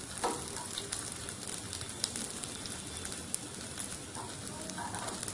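Sliced garlic sizzling and crackling steadily in hot oil in a small aluminium tempering pan on a low gas flame, stirred with a steel spoon.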